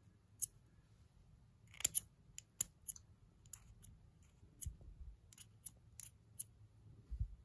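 Small scissors snipping pieces off the tip of a waxy makeup highlighter stick: a dozen or so short, sharp, irregular snips, the loudest about two seconds in, with a couple of dull handling bumps later.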